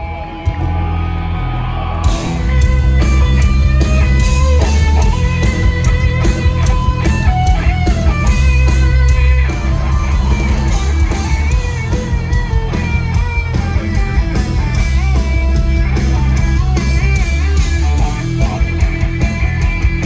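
Live rock band playing an instrumental jam over a stadium PA: a heavy bass guitar line starts about half a second in, and drums with cymbals and a lead electric guitar join about two seconds in.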